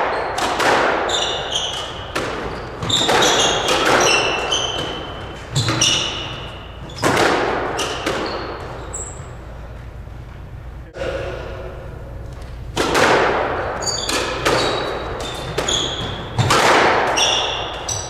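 Squash ball cracking off rackets and the court walls every second or two, each hit echoing in the enclosed court, with a lull near the middle. Short squeaks from court shoes on the hardwood floor come between the hits.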